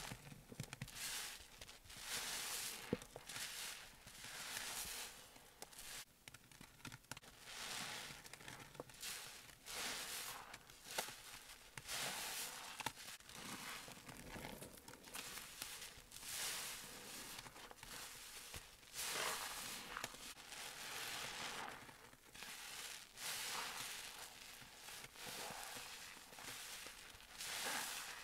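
A sponge loaded with thick soapy foam squeezed by hand over and over: wet squelching and crackling suds, a squeeze every second or so.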